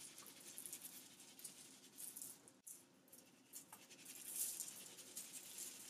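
Faint patter of a dry seasoning mix sprinkled by hand onto cauliflower slices and parchment paper, a little louder about four seconds in.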